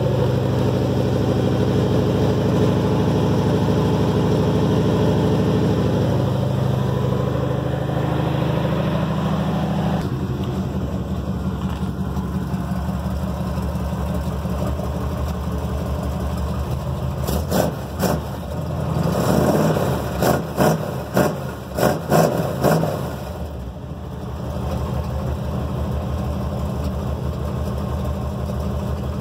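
Square-body pickup truck's engine idling, settling to a slightly lower idle about a third of the way in. A little past halfway it is revved in a quick series of short blips, then drops back to a steady idle.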